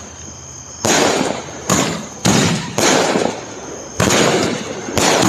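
Fireworks shells bursting: six sharp bangs in about four seconds, each trailing off over about half a second.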